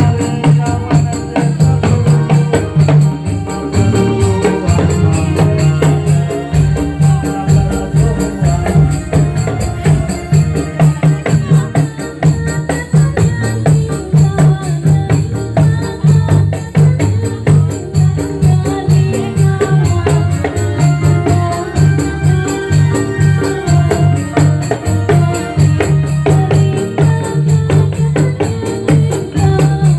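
Dolalak accompaniment music: a steady, fast percussion beat with jingling hand drums under a held melody line.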